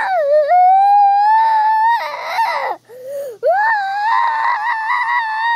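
A young child wailing, two long, high crying wails with a short breath-catching sob between them a little past halfway through.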